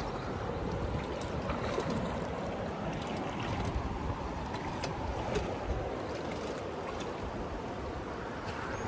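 Steady rush of a fast, swollen river current around a drifting raft, with some wind rumble on the microphone and a few faint ticks.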